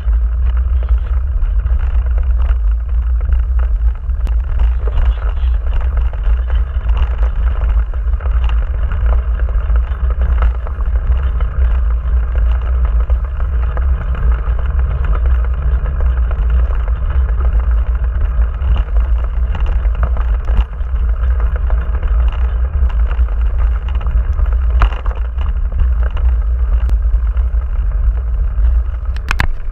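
Strong headwind buffeting the microphone of a camera mounted on a mountain bike, over the steady rolling noise of its tyres on a dirt farm track. A few sharp knocks from bumps, one about three-quarters of the way through and more near the end.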